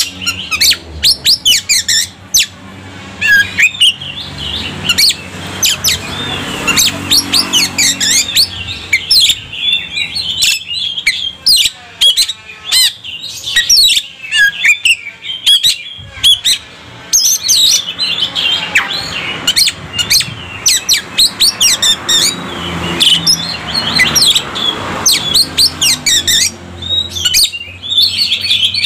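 Oriental magpie-robin singing a loud, rapid, varied song of whistled glides broken by many sharp, harsh chips. It is the full, mimicry-packed 'full materi' song that keepers play to rile other male magpie-robins.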